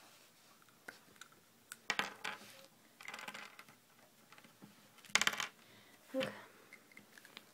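A few sharp clicks and taps from a pen being handled at a table and fingers on the tabletop, loudest in clusters about two and five seconds in.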